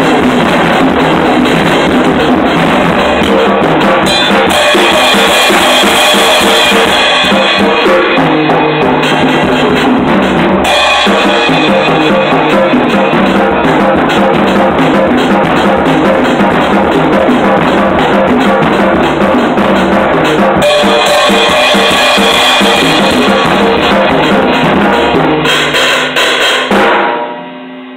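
Acoustic drum kit played without a break, with kick drum, snare and cymbals, loud and close to the microphone; the playing stops about a second before the end.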